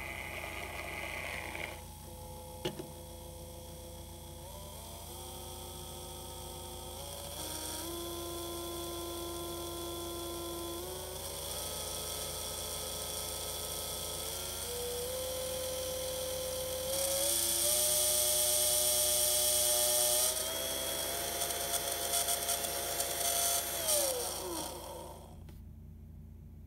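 Hanpose 775 brushed DC motor running unloaded on a bench supply. After a rougher noise in the first two seconds, its whine rises in pitch in several steps as the voltage is raised, and it is loudest and hissiest for a few seconds near the top speed. Near the end the pitch falls quickly and the motor winds down to a stop once the power is cut.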